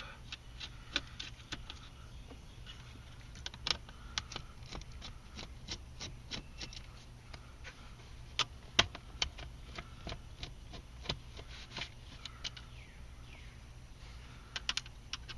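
Irregular small clicks and taps of a screwdriver and small screws being backed out of the plastic heater/AC control panel and handled, over a faint steady low hum.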